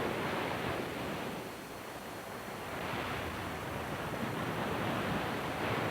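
Ocean surf washing ashore in a steady rush that swells and eases, dipping briefly about two seconds in.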